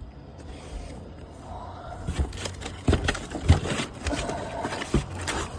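Shower drain parts and packaging being handled during unboxing: scattered knocks and clicks with some rustling, the knocks coming from about two seconds in.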